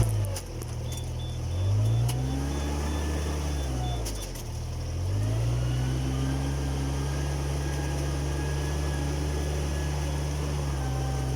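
Rice transplanter's engine running, its speed dropping and picking up twice before settling into a steady run.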